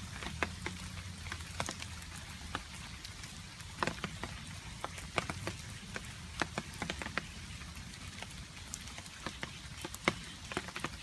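Rain falling, with water drops dripping irregularly in many sharp separate ticks over a steady low background hiss.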